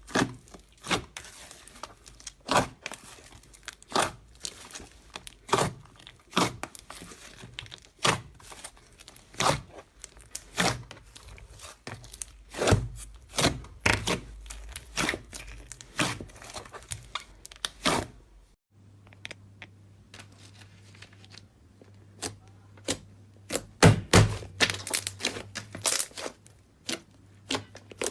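Slime being squeezed, stretched and pressed by hand, giving a run of sharp pops and crackles, one to three a second. There is a brief lull about eighteen seconds in, then more pops, the loudest cluster about two-thirds of the way through.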